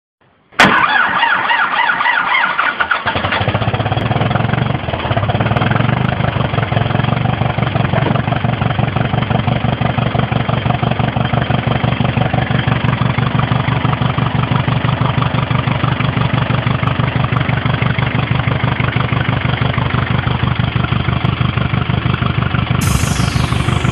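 Ursus C-360's four-cylinder diesel engine cold-started at about −17 °C: it cranks for a couple of seconds, catches about three seconds in, and settles into a steady, evenly pulsing diesel run.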